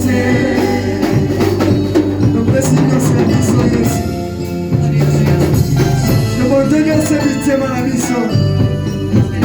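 Gospel worship music from a church band, with a steady beat on drums and hand percussion under pitched instruments.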